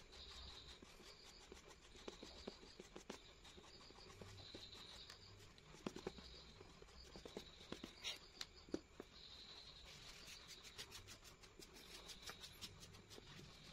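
Faint scratching and ticking of a pen drawing short strokes on paper, with a denser run of quick strokes around the middle.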